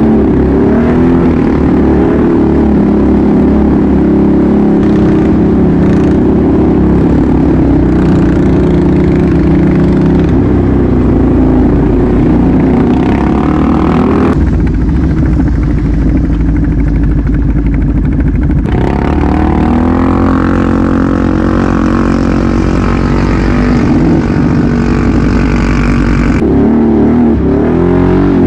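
ATV engines running under way, the engine pitch rising and falling with the throttle. Around the middle the upper noise drops away for a few seconds, leaving a lower, steadier engine run.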